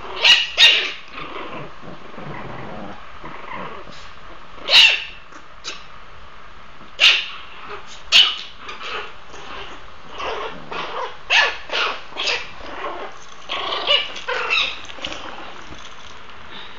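Puppies play-fighting, with short sharp yips and barks and growling in between. A quick pair of barks opens it, single barks follow every second or two, and a busier run of barks and yips comes from about ten seconds in.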